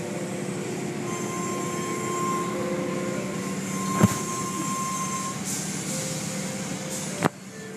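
Automatic tunnel car wash heard from inside a car: steady rumble and hiss of spraying water and machinery with a low hum and a thin motor whine. Sharp knocks come about four seconds in and again near the end, after which it goes quieter.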